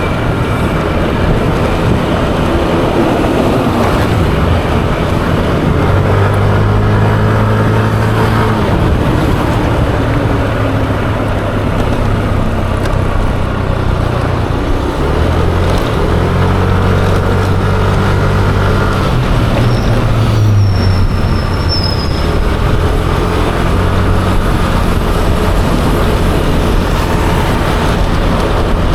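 Yamaha Aerox 155 scooter's single-cylinder engine running under way, amid steady wind and road noise. Its note climbs and holds as it pulls away, twice: about six seconds in and again about sixteen seconds in. A brief high whine sounds just past twenty seconds.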